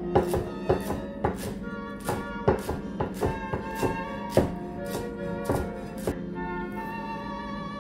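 A cleaver chopping fresh cilantro on a wooden cutting board: a quick, uneven run of knocks, about two to three a second, that stops about six seconds in. Instrumental background music plays under it.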